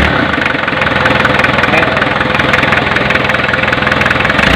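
Diesel engine idling steadily, running now that the injection pump's fuel shut-off valve has power again after a blown fuse.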